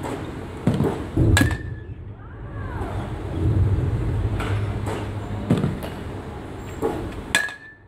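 Baseball bat hitting pitched balls twice, about six seconds apart. Each hit is a sharp crack followed by a brief ringing ping, with smaller knocks in between.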